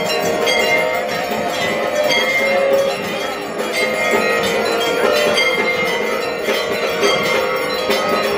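Puja bells ringing continuously with rapid metallic clangs over the din of a packed crowd, with a few held tones underneath.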